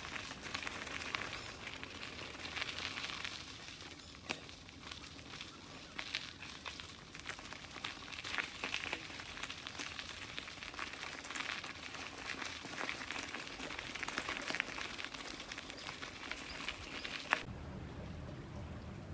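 Rental 29er mountain bike rolling along a dirt forest trail: tyres crackling over grit and dry leaves, with frequent sharp clicks and rattles from the bike over bumps. Near the end it cuts abruptly to a low steady rumble of wind and water.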